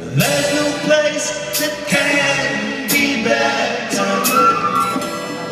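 Live psychedelic rock band playing, with sustained guitar and organ-like chords, voices singing and drum and cymbal hits about once a second.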